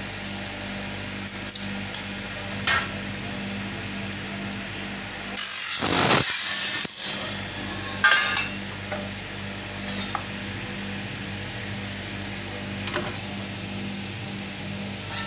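Aluminium window-profile cutting machine with its motor humming steadily. About five seconds in, the blade cuts through an aluminium window profile with a harsh, high-pitched screech lasting nearly two seconds. A sharp metallic knock comes shortly after, with a few light clicks of the profile being handled.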